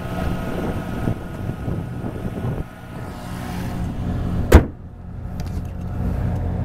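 Mazda RX-7 FD3S's twin-turbo two-rotor rotary engine idling steadily. About four and a half seconds in the bonnet slams shut with one loud bang, and after that the engine sounds muffled.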